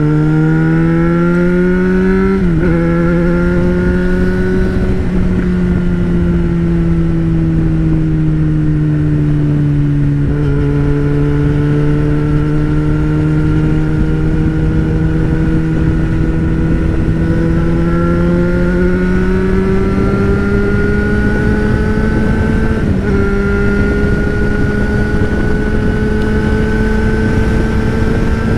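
Yamaha XJ6 600cc inline-four motorcycle engine running under load on the move, its note climbing slowly in pitch, with three brief breaks in the note. Steady wind rush on the microphone.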